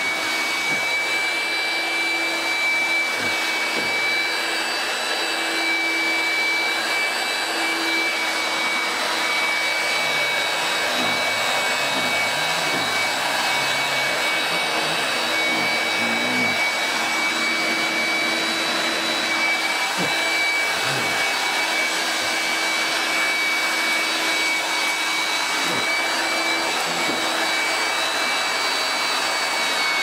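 Hoover Heavy Duty BrushVac S1137 handheld vacuum cleaner running steadily with a high motor whine and a lower hum that drops in and out, plus a few light knocks as it is moved about. Its brush bar stops when pressed against the sofa, which the owner puts down to the drive belt needing replacement.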